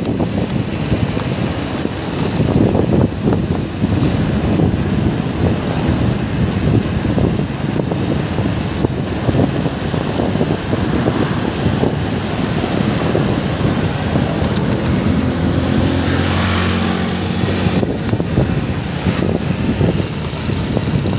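Wind buffeting the microphone over the noise of road traffic. About three-quarters of the way through, a motor vehicle passes, its engine hum rising briefly above the rush.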